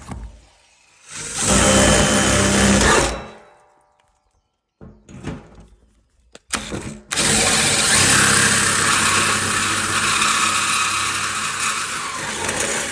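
Brushless cordless drill spinning a hole saw through the lid of a blue plastic barrel: a two-second cut about a second in, a pause with a few knocks, then a longer cut from about seven seconds on.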